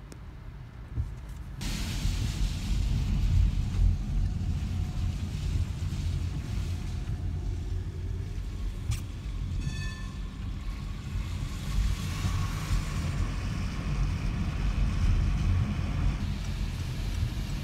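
Car cabin on a rainy night: a steady low engine and road rumble, with tyre hiss from the wet road coming in suddenly about two seconds in as the car gets moving. A single click and a short beep come about halfway through.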